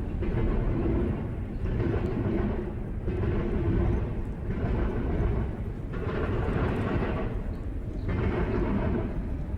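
A long freight train rolling past: a steady rail rumble that swells and dips about every one and a half seconds as each car's wheels go by, with a faint ringing from the wheels on the rails.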